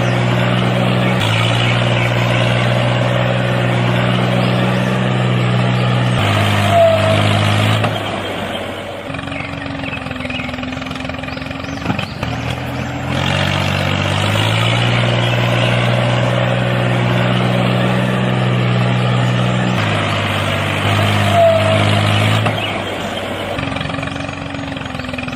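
Looped recording of a tractor-like engine running, stepping between a few pitch levels. The same sequence, with a short chirp in it, repeats about every fourteen and a half seconds.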